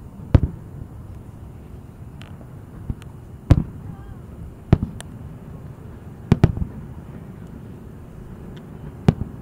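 Distant fireworks booming: about six sharp bangs spread over several seconds, some in quick pairs, each with a short echoing tail as the booms reverberate off the surrounding cliffs.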